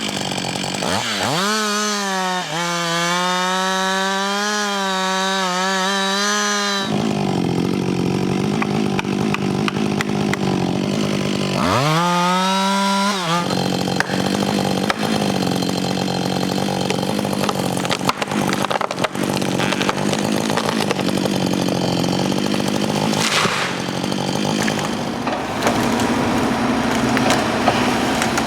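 Chainsaw revved up to full throttle, then cutting into wood under load as a steady, noisy drone. It is revved freely again briefly about 12 seconds in and goes back to cutting.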